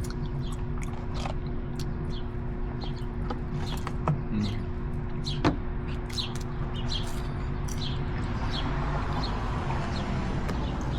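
Food wrappers and paper bags rustling and crinkling as takeout food is unwrapped, with scattered sharp crackles and two louder clicks, over a steady low hum.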